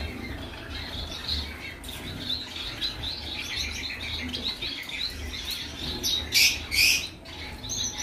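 Caged finches, Bengalese finches among them, chirping with many quick high calls. Two louder bursts come a little after six seconds in.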